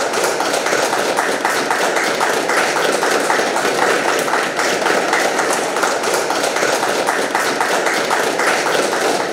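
A group of children applauding, many hand claps blending into a steady patter.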